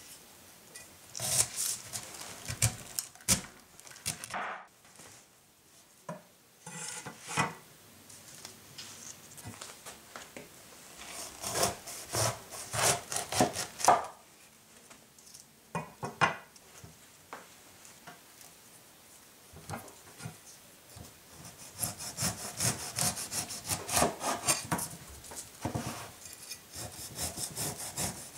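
A cleaver sawing and chopping through a whole pineapple's tough, spiky rind and juicy flesh on a wooden cutting board: crunchy rasping strokes with knocks of the blade on the board. Near the end the strokes come quick and close together as the rind is sliced off in strips.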